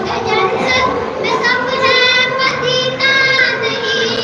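A boy's solo voice, unaccompanied, chanting melodically into a microphone, with long held and wavering notes: devotional recitation.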